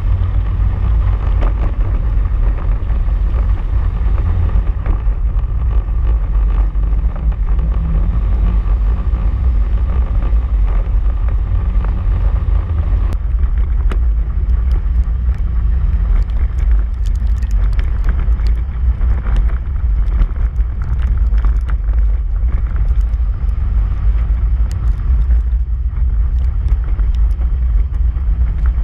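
Polaris RZR side-by-side driving on a gravel trail: a steady low engine and drivetrain drone with wind buffeting the hood-mounted camera. About halfway through the higher hiss drops, and scattered sharp ticks come in.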